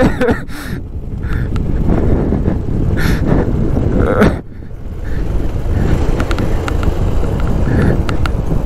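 Motorcycle being ridden, its engine and road noise running steadily under heavy wind rumble on the microphone. The level dips briefly about four and a half seconds in.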